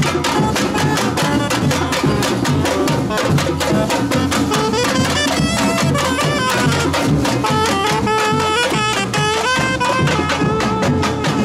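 Batucada street band playing live: samba drums beat a fast, steady rhythm while a saxophone plays a melody over them, clearest in the second half.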